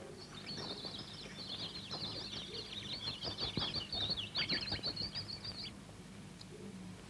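A flock of small songbirds twittering in a dense, rapid high chatter of quick chirps, which then cuts off.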